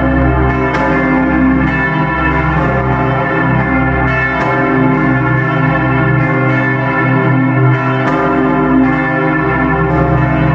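Several large bronze church bells, the Grassmayr-cast bells of Bucharest's People's Salvation Cathedral, ringing together in a peal. Strikes come about once a second or faster and overlap, each new strike sounding over the long ringing of the others and a continuous deep hum.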